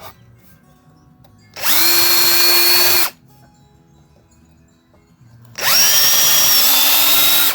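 Power drill running twice into a wooden seat base, for about a second and a half and then about two seconds. Each run spins up quickly and holds a steady whine.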